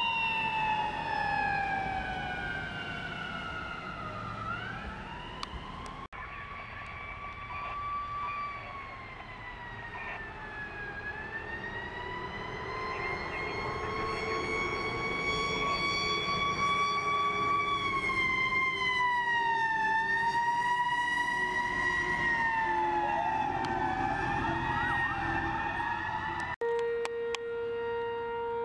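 Fire truck sirens wailing, the pitch sweeping slowly down and up, with the sound breaking off suddenly twice. After the last break, a steady unwavering horn-like tone.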